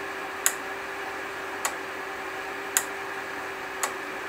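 Sharp ticks about once a second over a steady electrical hum and hiss.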